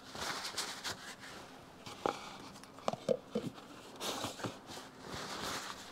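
Faint handling noises at a workbench: soft rustling and a few light clicks and short clinks of small metal transmission parts being moved about, the clicks clustered in the middle.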